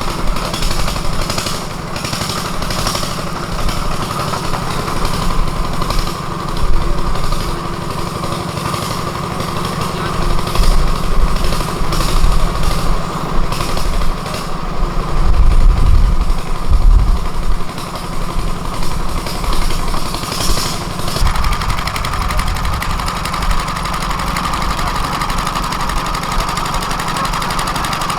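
A motor engine running hard with a rapid, rattling knock. It grows louder in the middle and settles into a smoother, steadier drone in the last few seconds.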